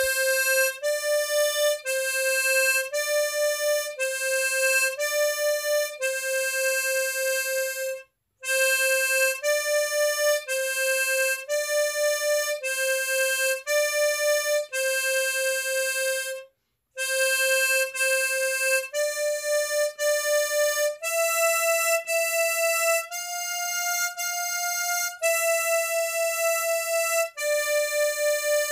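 Harmonica playing a simple melody in clean single notes using the tongue-block technique. It starts on middle C and alternates C and D in short phrases separated by brief pauses. It then climbs to E and F and steps back down to end on a long C.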